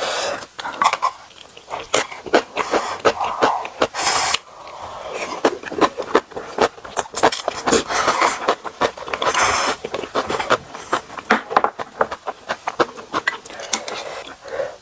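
Close-miked eating of ramen: noodles and broth slurped in several hissy pulls of about half a second, with wet chewing and many small clicks of chopsticks and spoon against the bowls.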